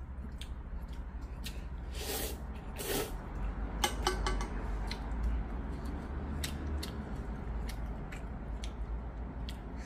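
Instant ramen noodles slurped twice, about two and three seconds in, followed by chewing with small wet clicks and smacks. A steady low hum runs underneath.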